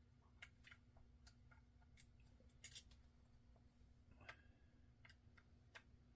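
Near silence: faint, scattered clicks of a small screwdriver turning out the side-plate screws of a Penn 85 fishing reel, the screws and tool ticking against the metal. A steady low hum runs underneath.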